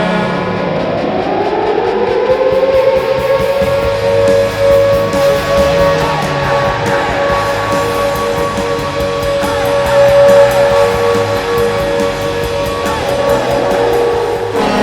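Binghamton Devils' arena goal horn sounding one long blast that rises in pitch over the first couple of seconds, then holds a steady note. It plays over a rock goal song with electric guitar.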